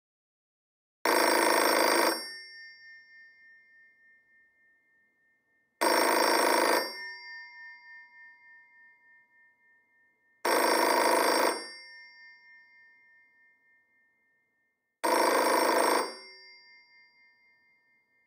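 A telephone's bell ringing four times, each ring about a second long and about four and a half seconds apart. After each ring the bell tone lingers and fades, wavering, over several seconds.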